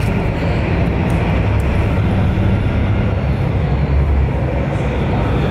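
Small passenger ferry's engine and propeller running with a steady low rumble as the boat comes in to its pier.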